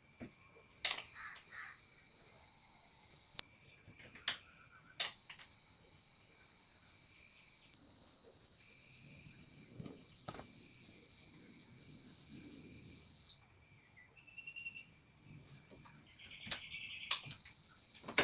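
Small electronic buzzer of a homemade door alarm sounding a steady, high-pitched single tone in three spells: about two and a half seconds, then about eight seconds, then again near the end. Each spell starts with a sharp click.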